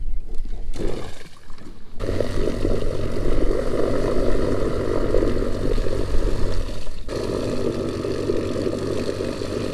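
Electric trolling motor running hard, straining to push the boat through reeds. It comes on about two seconds in and drops to a lower, steadier level about seven seconds in.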